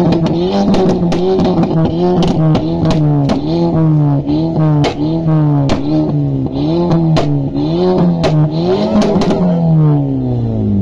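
A Mk5 Volkswagen Golf R32's VR6 engine is blipped hard again and again through its exhaust, about one and a half rev spikes a second, with sharp pops and crackles between them. Near the end the revs fall away slowly.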